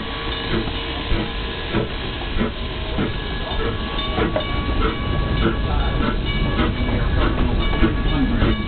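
4-4-0 steam locomotive moving off slowly: steam hissing over a regular beat of knocks and clanks from the engine and its running gear, growing louder about five seconds in.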